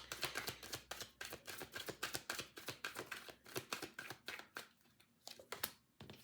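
A deck of tarot cards being shuffled: a quick, dense run of papery card-on-card clicks that thins out about four and a half seconds in, leaving a few separate snaps of cards.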